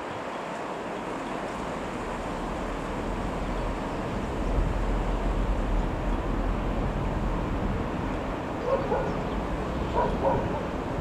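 Wind buffeting the microphone with a steady low rumble, and a dog barking a few short times near the end.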